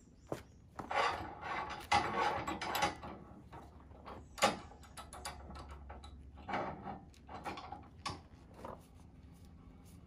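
Irregular knocks, clanks and scrapes of metal and wood as a log clamp is worked against a pine log on a sawmill's steel bed, with a sharp knock about four and a half seconds in.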